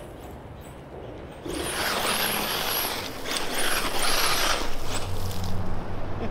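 Brushless electric RC buggy accelerating hard on loose dirt: a high-pitched motor whine that rises and falls in two bursts over the rough hiss of tyres spinning and scattering dirt. A low steady hum comes in about five seconds in.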